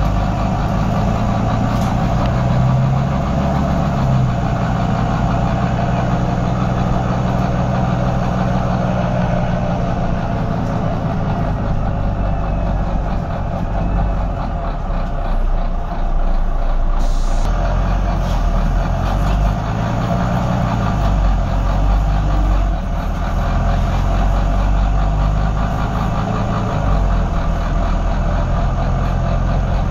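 Volvo B9TL double-decker bus's six-cylinder diesel engine and drivetrain running on the move, heard inside from the upper deck. The engine note rises and falls a few times, and there is a short air hiss about halfway through.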